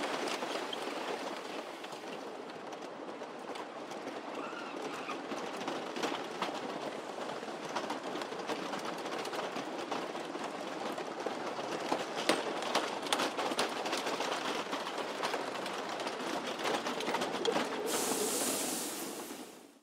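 Roller coaster train rattling and clacking along its steel track, with many sharp clicks and knocks over a steady rushing noise. A brighter hiss comes in near the end before the sound fades out.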